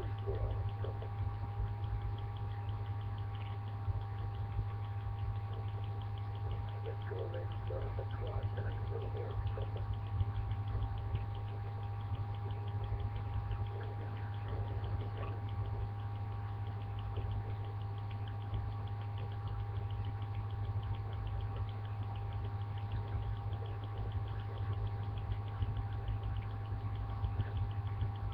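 A steady low hum with faint high tones held over it, unchanging throughout.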